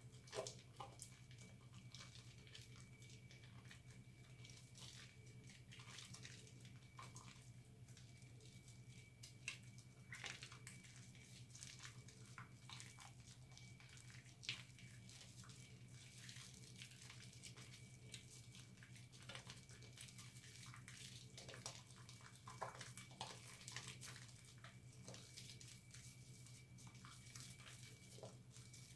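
Faint wet squelching and small splashes of soapy hands lathering a ball of recycled soap in a sink of water, irregular and scattered throughout, over a steady low hum.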